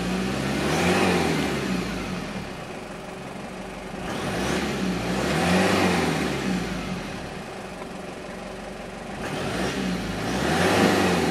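1997 Toyota Hiace Regius's diesel engine, stationary and heard from inside the cabin, revved three times from idle: each rev rises and falls back over about two seconds, the revs about five seconds apart. It revs freely.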